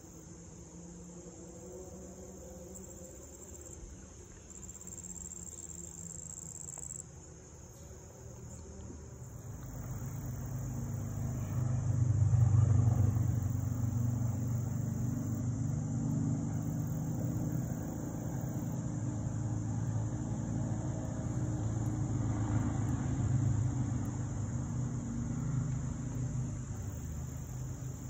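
Insects chirring in a steady high-pitched chorus. About ten seconds in, a vehicle engine's low hum joins and stays louder than the insects, swelling a couple of seconds later.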